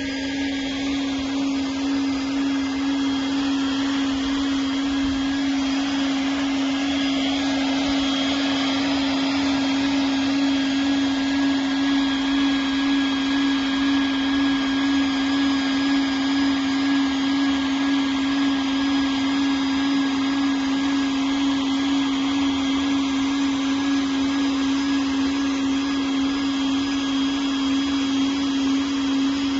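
PVC swimming-pool liner welding machine running steadily: a constant motor hum with a hiss over it.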